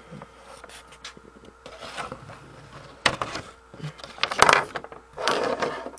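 Close handling noises: rubbing and scraping of objects being moved about, with several sharp knocks and clicks, the loudest scrape about four and a half seconds in.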